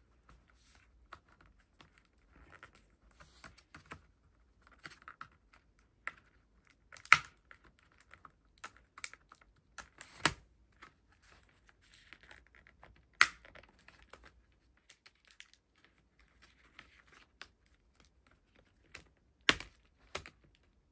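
HP EliteBook 835 G7 laptop keyboard being pried up out of its top case by hand: scattered light plastic clicks and rustles, with four sharp snaps as the tabs holding it down let go.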